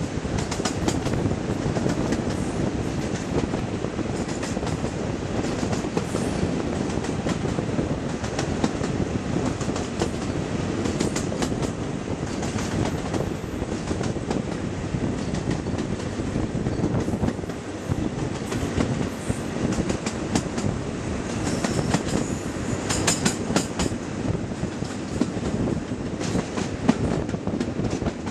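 Class 55 Deltic diesel locomotive D9009 under way, heard from the moving train: a steady dense rumble of its Napier Deltic engines and running gear, with a rush of air and scattered clicks from the wheels on the track.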